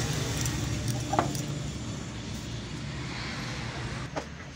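A steady, low, engine-like drone in the background that fades a little toward the end. A light click comes about a second in, and a sharper click near the end as a key turns in the motorcycle's side-panel lock.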